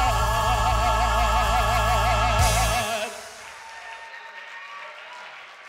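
A male gospel singer holds a final note with a wide vibrato over a backing track with heavy bass, through a church sound system. The music cuts off about three seconds in, leaving faint audience applause.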